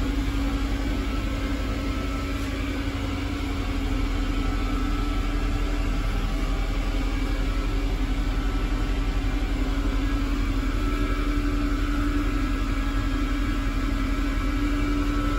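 Steady low hum inside a stationary Class 196 diesel multiple unit: the train's idling underfloor diesel engine and its onboard ventilation, with a constant mid-pitched tone over the rumble.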